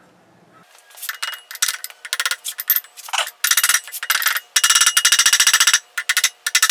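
Metal tools and machine parts clinking and rattling against each other, a string of sharp clicks with a dense run of rapid, evenly spaced clicks in the middle.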